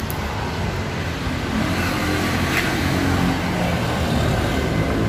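Road traffic: a motor vehicle's engine running close by, a steady low drone that gets gradually louder.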